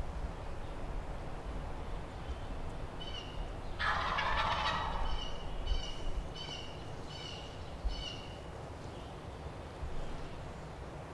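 Wild turkey gobbling once, a rattling burst about four seconds in. Through the middle, a series of about seven short, high calls repeats evenly.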